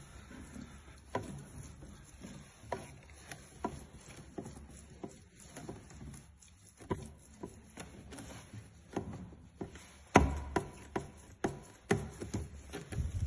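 Footsteps on a wooden staircase, the treads knocking and creaking underfoot about once or twice a second, heavier steps near the end: a staircase that creaks.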